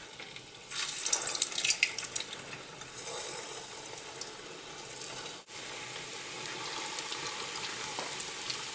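Bread-wrapped potato rolls deep-frying in oil in a kadai. A burst of crackling sizzle comes as they go into the oil about a second in, then it settles into a steady bubbling sizzle.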